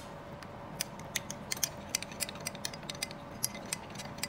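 Metal spoon clinking against a drinking glass while stirring cornstarch into water, a quick, irregular run of light clicks.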